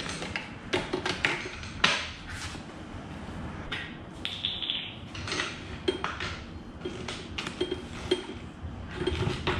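Clicks and knocks of plastic and metal parts being fitted together while a pressure washer is assembled, as the spray wand is joined to the trigger gun and the hose is handled, with a short high squeak about halfway through.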